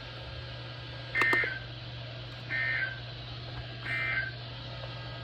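Emergency Alert System SAME data tones sounding the end-of-message code that closes the broadcast warning: three short, identical screeching bursts, just over a second apart, over a steady low hum.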